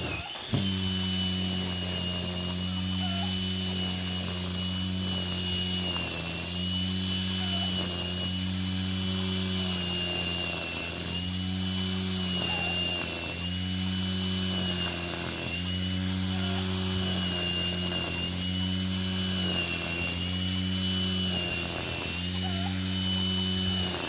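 Angle grinder used as a grass cutter, running continuously with a steady high whine whose pitch dips slightly at intervals as it is swept through the grass. A lower hum rises and falls about every two seconds.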